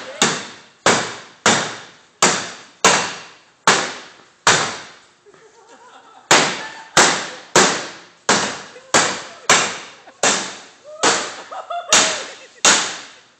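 A baseball bat whacking the sheet-metal body of an old pickup truck over and over, each hit a sharp clang that rings out and fades. About one and a half hits a second, with a short pause about five seconds in.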